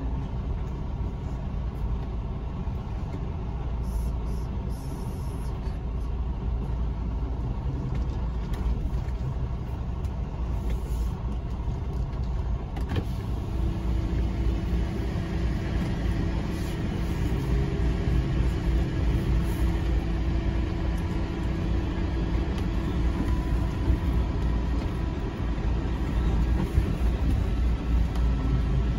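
A heavy truck's engine, heard from inside the cab, running steadily at low speed as the truck rolls slowly. Partway through, a steady hum joins in and fades out near the end.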